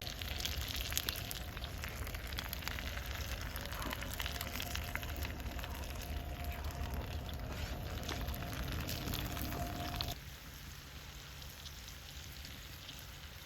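Vegetables sizzling and crackling in a hot pan, a steady hiss full of small pops. The sound drops abruptly to a quieter level about ten seconds in.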